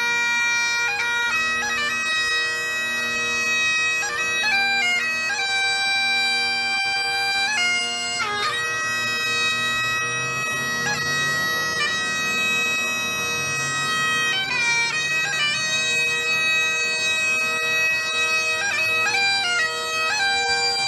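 Bagpipes playing a slow tune over a steady drone, the held melody notes linked by quick grace-note flourishes.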